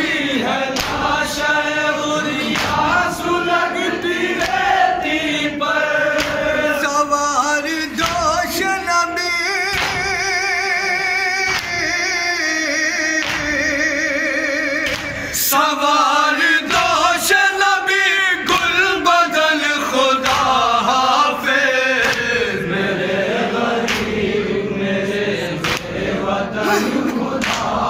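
Men chanting a Shia noha lament in chorus behind a lead reciter singing into a microphone, with a steady beat of matam: open hands striking chests in rhythm.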